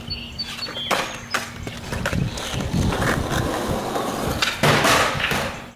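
Skateboard rolling and clacking, with several sharp knocks of the board and a louder scraping stretch near the end, such as a slide or grind.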